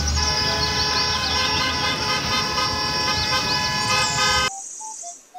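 Several school bus horns honking together in one long, continuous sound, cutting off suddenly about four and a half seconds in.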